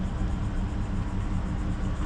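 Boat's outboard engine idling, a steady low rumble.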